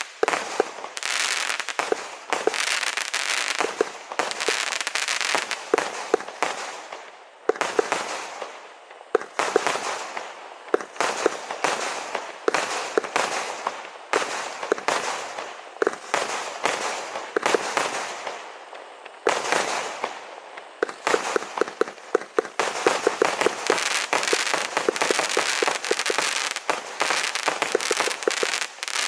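Vulcan Fireworks Thrillseeker firework firing a dense, rapid run of shots and bursts with crackling, pausing briefly a couple of times before picking up again.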